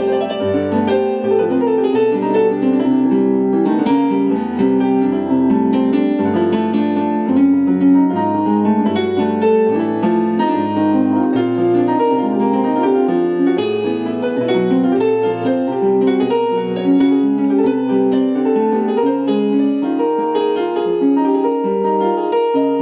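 Piano-voiced keyboard playing a continuous chordal progression with a moving bass line, a gospel-style passing-chord movement leading to the 4 chord.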